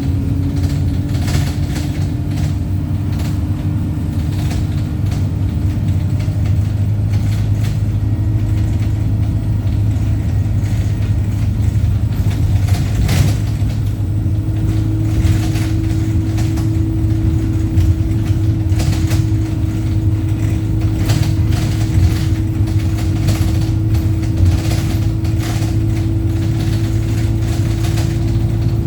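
Wright StreetLite single-deck bus running, a steady low diesel drone with a whining tone that steps up in pitch twice, about 8 and 14 seconds in. Short knocks and rattles come through all along, the loudest about 13 seconds in.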